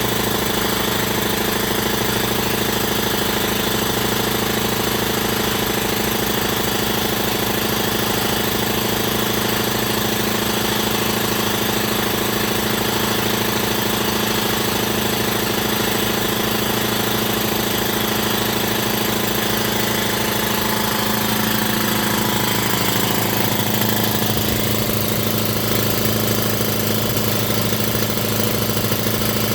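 DeVilbiss Pro 4000 60-gallon air compressor's 5 hp twin-piston pump running steadily as it builds tank pressure toward its roughly 120 PSI shut-off. Part of its sound shifts lower in pitch about twenty seconds in.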